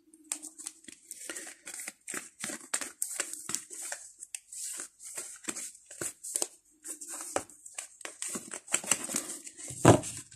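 Tarot cards being handled by hand: a quick run of rustles, snaps and clicks as a deck is fanned out and squared, with a louder knock near the end.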